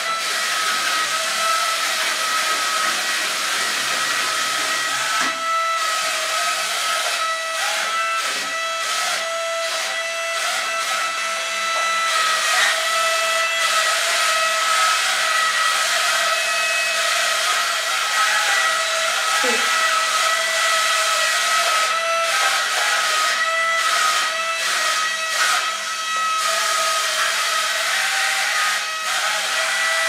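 Suction fan of a remote-control wall-climbing toy tank running with a steady high-pitched whine over a hiss of rushing air, holding the tank against the wall as it drives.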